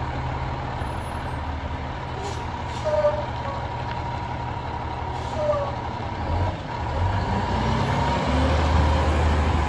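Diesel engine of an Autocar WXLL McNeilus front-loader garbage truck running, with a steady high whine over it. The engine note deepens and grows louder over the last couple of seconds.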